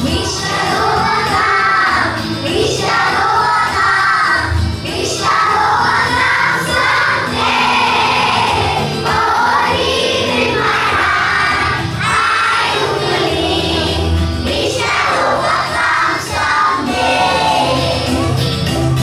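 A song with singing over instrumental backing music, the voices rising and falling in phrases.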